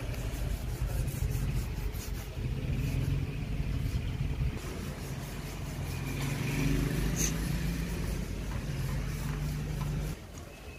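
An engine runs steadily with a low hum and stops abruptly about ten seconds in. Under it is the faint, rhythmic scratching of a steel-wool scouring pad rubbing rust off a motorcycle's steel wheel rim.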